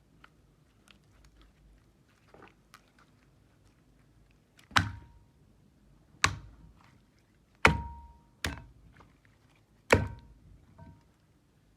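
Five sharp thunks in the second half, each fading quickly, some with a brief ringing tail, over quiet handling noise.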